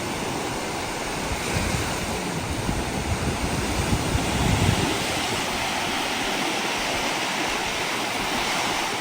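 Steady rush of Lake Superior waves washing onto the shore, with wind buffeting the microphone more strongly between about two and five seconds in.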